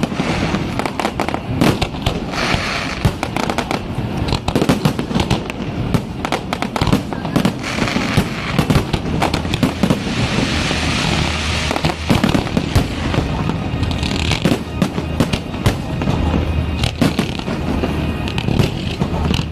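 Aerial fireworks display: a dense, unbroken stream of bangs and pops from shells bursting in quick succession. About halfway through there is a stretch of hissing crackle.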